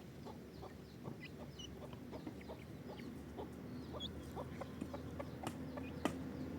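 Chickens clucking, with many short chirping calls and clicks close together.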